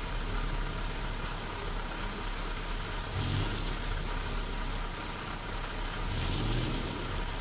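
Off-road rock-crawler buggy's engine running under load, revving up twice, about three seconds in and again near the end, as it climbs over rocks.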